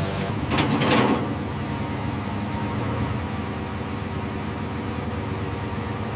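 Steady low mechanical rumble with a faint hum, like heavy machinery running, with a short whooshing swell about half a second in that fades by one second.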